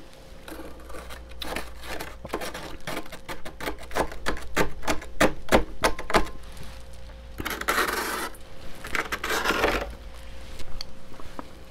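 A metal spoon scraping and chipping at thick, powdery freezer frost. It gives a quick run of crisp, crunchy scrapes, then a longer rasping scrape about eight seconds in.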